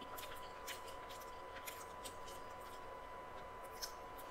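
Close-up mouth sounds of chewing a fried chicken sandwich: scattered soft clicks and crackles, over a faint steady high-pitched tone.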